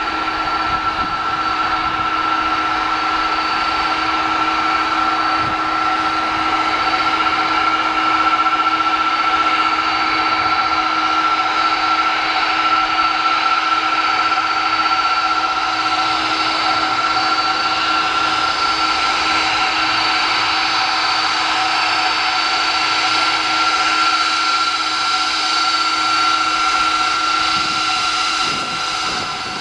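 Airbus A330-223's Pratt & Whitney PW4000 turbofans at taxi idle: a steady, loud jet whine of several held tones over a rushing hiss. One low tone drops out and the level dips slightly near the end as the nose passes close by.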